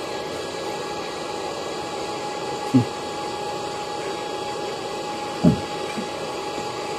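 Steady hum and hiss of a running machine or fan, with two brief low knocks about three and five and a half seconds in as cut plywood shelf boards are slotted together by hand.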